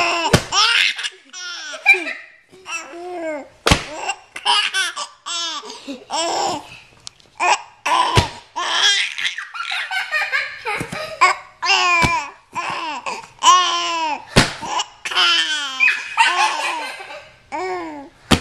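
Baby laughing in repeated bursts of high-pitched giggles, with a few sharp clicks in between.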